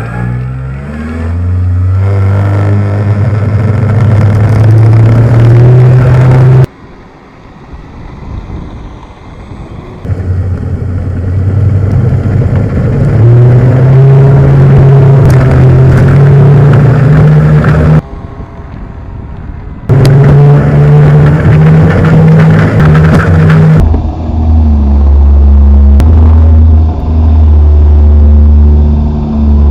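Twin motors and propellers of a radio-controlled Beechcraft Duke model plane, running at close range as heard from on board. The pitch steps up and down with the throttle, and the sound drops away sharply twice, about a quarter of the way in and again past the middle.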